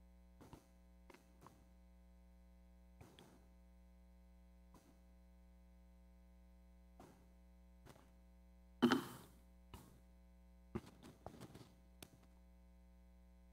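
Steady electrical mains hum through the church microphone system, with scattered faint knocks and rustles. There is one louder, brief rustle about nine seconds in, and a run of small knocks and rustles near the end as the bishop kneels at the altar.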